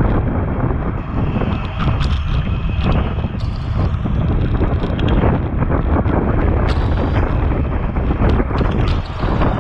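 Wind buffeting the microphone of a bike-mounted action camera at racing speed: a steady low rumble, with scattered clicks and knocks through it.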